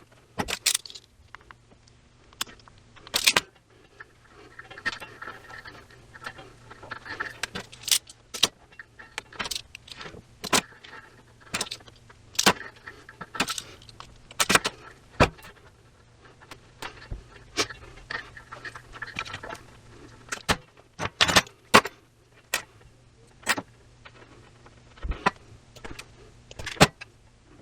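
Small metal parts and tools being handled at a workbench: irregular sharp clinks and rattles, with a steady low hum underneath.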